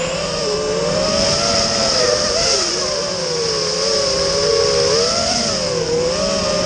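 Electric motors and propellers of a 220 mm FPV racing quadcopter whining in flight, several pitches wavering up and down together as the throttle changes, over a steady high hiss of propeller wash.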